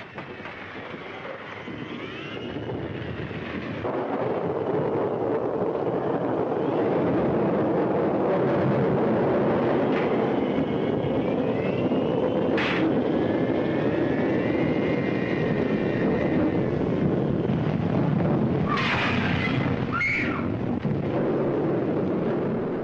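Storm wind rushing on an early-1930s film soundtrack: a steady noise that swells in over the first few seconds, with faint whistling tones above it. A brief sharper sound comes near the end.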